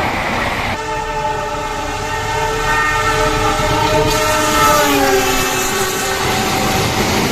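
Long multi-tone locomotive horn blast from the KA Argo Wilis express, held for several seconds, its pitch dropping about five seconds in as the train passes, over the noise of the train running by.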